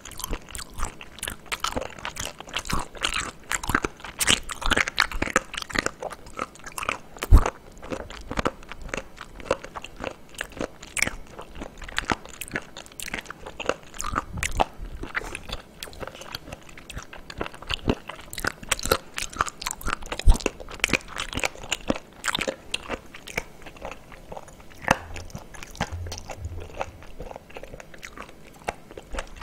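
Close-miked chewing of raw abalone sashimi: a long run of irregular small clicks and wet mouth sounds as the firm flesh is chewed.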